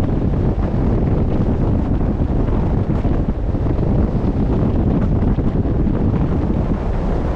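Steady wind noise buffeting the microphone, with the wash of the open sea beneath it.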